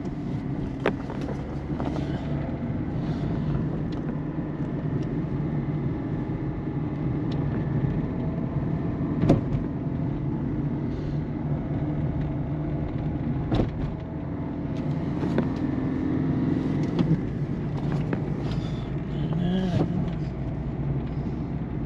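A 2008 Peugeot 207 1.4 turbo diesel driven over road holes, with steady engine and road noise and several sharp clunks from the front suspension. The loudest comes about nine seconds in, with others near the start, around 13 seconds and around 17 seconds. The clunks over bumps point to a front suspension fault, which the owner thinks could be a strut mount bearing, lower ball joint, sway bar links or control arm bushings.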